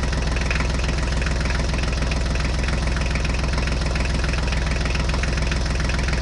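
Engine idling steadily with an even, fast-running low hum and no change in speed.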